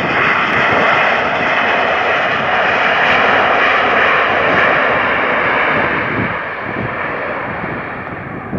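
Boeing 737-800's CFM56-7B jet engines in reverse thrust on the landing roll, a loud steady rushing noise that slowly fades over the last few seconds as the aircraft slows and moves away.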